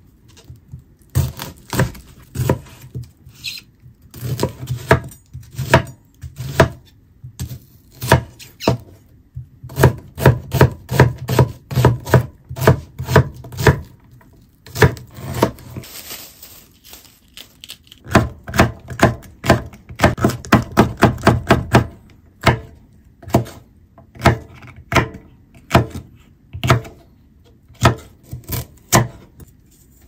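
Kitchen knife chopping onion and other vegetables on a wooden cutting board. The blade knocks against the board in quick runs of about four or five strokes a second, with short pauses between the runs.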